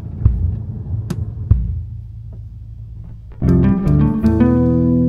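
Background music: a low steady hum with a few sharp ticks, then plucked guitar and bass chords come in loudly about three and a half seconds in.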